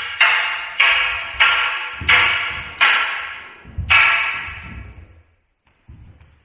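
Wooden bo staffs striking each other in a series of six sharp, ringing clacks, about two-thirds of a second apart, the last after a slightly longer pause. A faint thud follows near the end.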